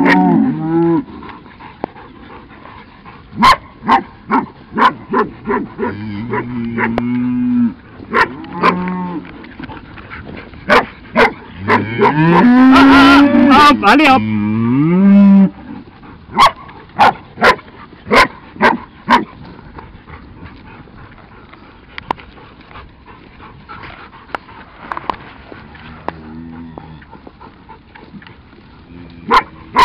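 Highland cattle mooing several times, with the longest and loudest call about halfway through, rising in pitch at its end. Between the calls come quick runs of short, sharp knocks.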